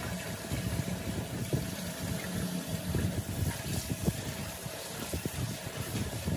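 Tap water running into a steel colander in a stainless-steel sink, with a low, uneven rumble and splashing as handfuls of mustard greens are rinsed in it.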